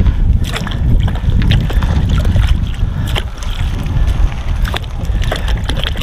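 Wind rumbling on the microphone, with scattered sharp clicks and knocks throughout.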